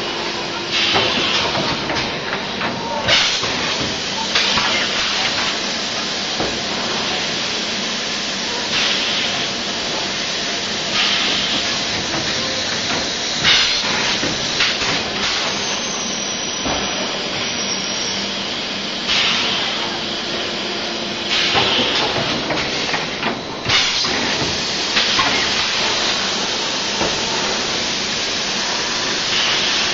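DKW12T six-head extrusion blow molding machine running in production, a steady mechanical din broken every few seconds by loud hissing blasts of compressed air from its pneumatic blowing and valve exhausts, with occasional sharp clanks of the moving mold carriage.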